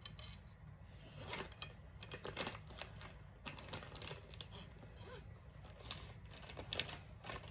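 Trombone slide being cleaned by hand: irregular scraping, rubbing and small clicks as a cleaner is pushed through the slide tube, becoming busier near the end.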